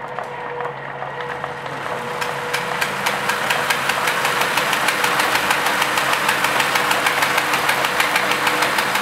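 1920 paper bag machine running empty, its paper feed disengaged, to spread fresh oil through its moving parts. It builds up over the first few seconds, then holds steady as a rapid, regular mechanical clatter over a steady hum.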